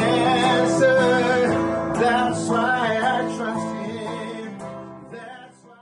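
Gospel worship song with acoustic guitar and a singing voice, fading out to silence near the end.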